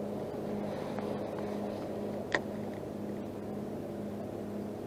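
A steady low mechanical hum, like a distant motor, with a single sharp click about two seconds in.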